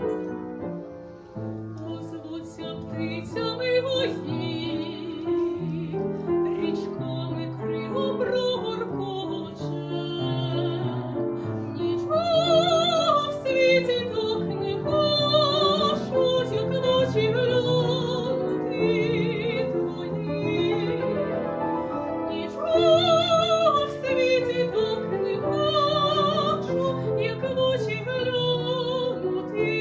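A woman singing in a classical, operatic style with wide vibrato, accompanied by piano. The piano plays alone briefly before the voice comes in about three seconds in.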